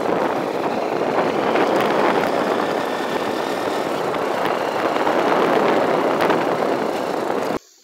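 Steady rushing road and wind noise from a vehicle travelling along a dirt road, with no clear engine note, cutting off abruptly near the end.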